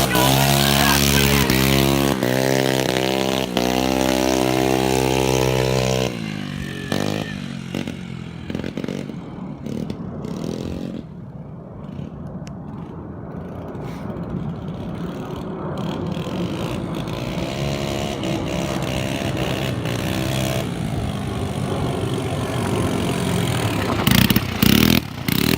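Small single-cylinder 139QMB four-stroke scooter engine on a motorised BMX, running loud and revving for about six seconds. It then drops away to a faint sound and comes back fainter later on. Several loud knocks near the end.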